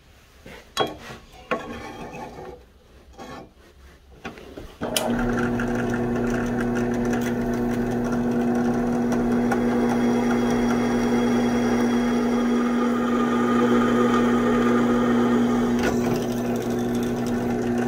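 A few scattered knocks and handling clatter, then about five seconds in a drill press starts abruptly and runs with a steady motor hum. Its twist bit cuts through the spring-steel knife blank.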